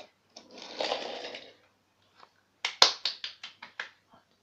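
Small toy train pushed along a wooden railway track: a brief rolling rasp, then a quick run of about eight sharp clicks and knocks, the first the loudest.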